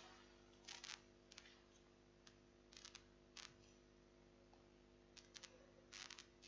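Near silence: room tone with a faint steady hum and several faint short clicks scattered through it.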